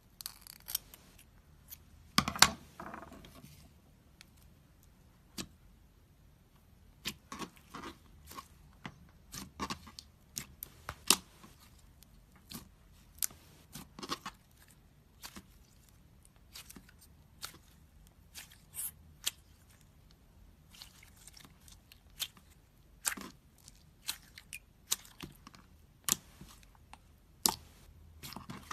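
Slime being handled, giving off irregular sharp crackles and pops, with the loudest crackle about two seconds in.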